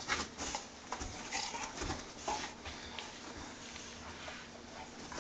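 Two dogs scuffling about on a fabric couch over a rubber toy: irregular soft scuffs and taps, busiest in the first half and quieter after.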